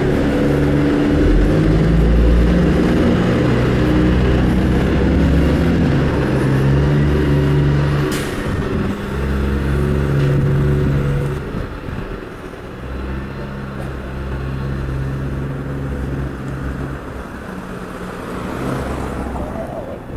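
Neoplan AN440 transit bus diesel engine running loud and close, its pitch stepping up and down as the bus moves off, with a brief hiss about eight seconds in; the engine noise falls away after about eleven seconds.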